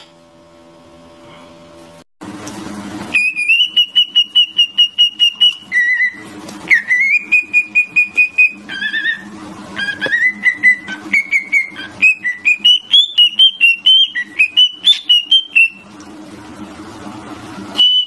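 Cockatiel whistling a tune: runs of quick, clear notes that are held or repeated and step up and down in pitch, starting a few seconds in.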